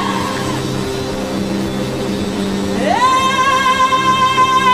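Worship music: a steady sustained backing chord, then about three seconds in a woman's voice slides up into a long, held, wordless note with slight vibrato.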